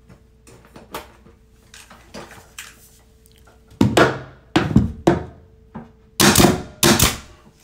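Porter-Cable nail gun firing about five times, each a sharp shot with a short hiss after it, from about four seconds in: nails being driven through crown molding at a miter corner. Faint taps and handling come before the shots.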